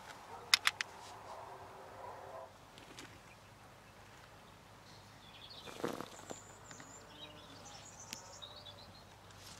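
Three sharp clicks in quick succession about half a second in, then quiet outdoor background with small birds chirping and a brief rustle around the middle.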